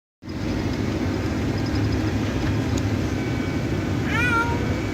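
Chevy van driving, with a steady engine and road rumble and a low hum. About four seconds in comes a brief high-pitched sliding squeak.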